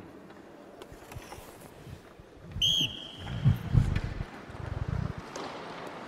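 A whistle blown once, briefly, about two and a half seconds in, the kind a coach uses to start or stop play in a hockey drill. It is followed by a couple of seconds of dull low thumps.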